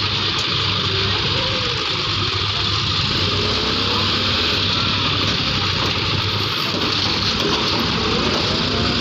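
John Deere 5310 tractor's diesel engine running steadily, with no change in speed.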